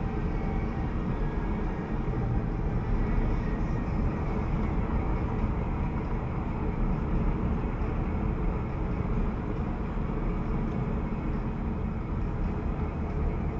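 Steady road and traffic noise inside a moving car, picked up by a Hawkeye U1 Pro dashcam's built-in microphone.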